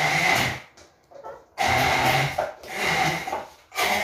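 Immersion blender puréeing olives with oil into a paste, run in short pulses: about four bursts of steady motor whine, each under a second, with brief stops between.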